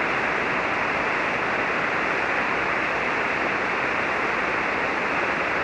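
Steady hiss of HF band noise from a ham radio receiver tuned to an SSB voice channel on the 40-metre band, with no station transmitting. The hiss is cut off above about 3 kHz by the receiver's SSB filter.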